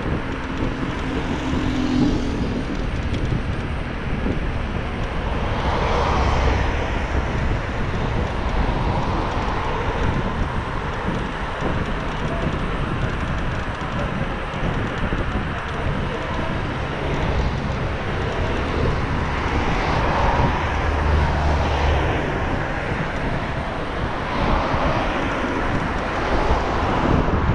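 Steady rush of wind buffeting the microphone and tyre noise on asphalt from a Xiaomi Mi Pro 2 electric scooter riding along a city road. The roar swells louder about six seconds in and again around twenty seconds in.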